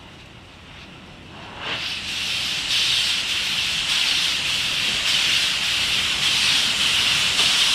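Steam locomotive Norfolk & Western 611 (a J-class 4-8-4) venting steam: a loud, steady hiss that starts about a second and a half in.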